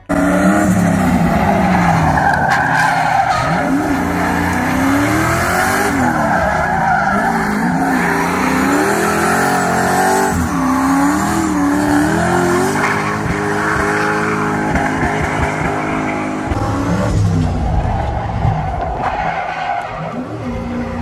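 Turbocharged Chevrolet Silverado's engine revving hard while drifting, its pitch rising and falling over and over, with tires squealing and skidding.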